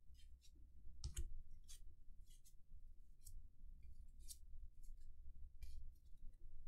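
Paper-stock baseball cards being flicked one by one through the hands: faint, irregular snaps and scrapes of card edge sliding over card, roughly two a second, one a little louder about a second in.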